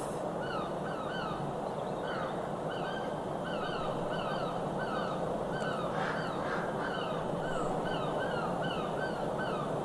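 Birds calling: a continuous run of short, repeated call notes, two or three a second, over a steady background hiss.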